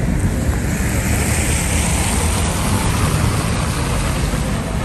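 Wind buffeting the microphone in a choppy low rumble, over a steady hiss of car traffic driving past on a snowy, slushy road. The traffic swells briefly about a second in.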